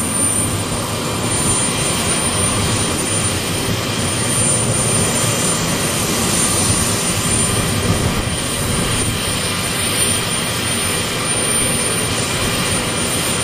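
Jet engines of a Tu-154 airliner in flight, a steady rushing noise at an even level.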